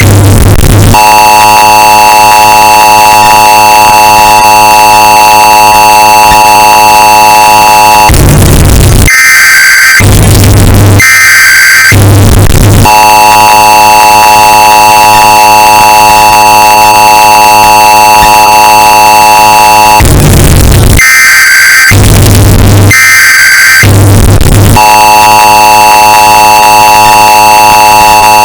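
Emergency Alert System broadcast alert, bass boosted and heavily distorted. Each round has two short, harsh SAME data bursts followed by the long, steady two-tone attention signal. The pattern repeats about every twelve seconds.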